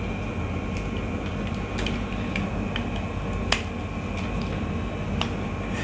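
Small scattered clicks and taps of a screwdriver working the terminal screw of a push-button switch's contact block as a wire is fastened, with one sharper click about three and a half seconds in, over a steady low hum.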